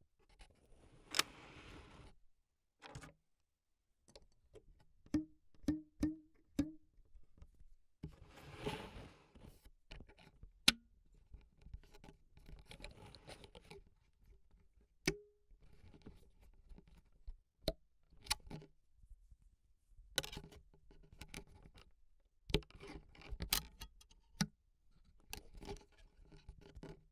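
Foley sticks and brushes hitting and scraping surfaces: scattered sharp taps and knocks, a quick run of four short hollow knocks, and several brushing swishes lasting a second or two each.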